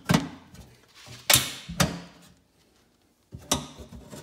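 Metal parts box being shut: four sharp metallic clacks as the lid and its latches close, the loudest about a second in, trailing off briefly.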